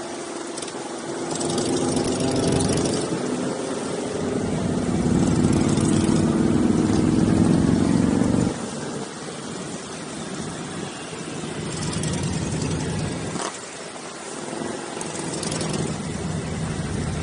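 Motorcycle engines running and revving, their pitch sliding up and down. The sound is loudest in the first half and drops suddenly about eight and a half seconds in, with a single sharp click later on.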